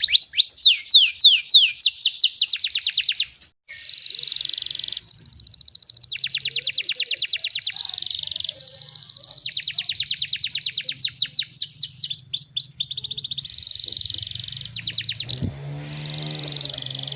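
Domestic canary singing in fast, tight trills: rapid runs of repeated down-sweeping notes alternate with buzzy rolls, broken by a short gap about three and a half seconds in. A faint low hum comes in near the end.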